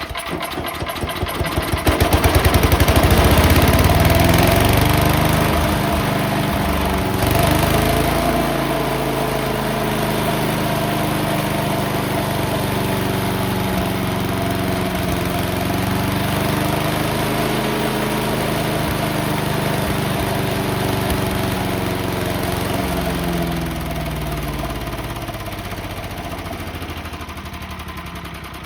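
The 8 HP Briggs & Stratton engine on a 1990s MTD Yard Machine chipper/shredder catches on starting fluid and revs up, running at high speed, held back by a throttle screw turned in to stop it over-revving. Over the last few seconds it slows down and gets quieter.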